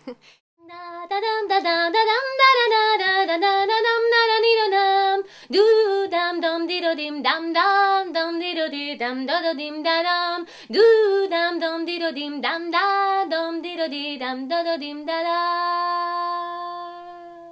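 A woman singing solo without accompaniment: a winding, ornamented melody in three phrases, the last ending on a long held note that fades away.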